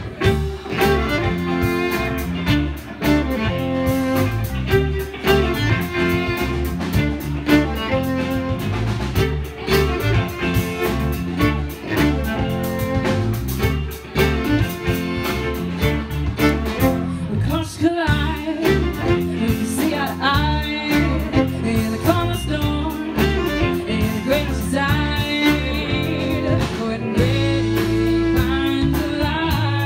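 Live band playing with fiddle, electric guitars, bass guitar and a drum kit keeping a steady beat, and a woman singing lead near the end.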